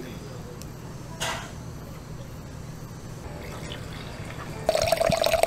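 Red wine pouring from a bottle into a wine glass, splashing loudly as the glass fills, starting near the end. Before it comes a knife click on a wooden cutting board and a brief swish from slicing grilled steak.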